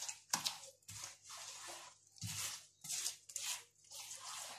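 Hands squishing and swishing a wet mix of beaten eggs with sesame and anise seeds around a glazed clay bowl, in a series of irregular short strokes.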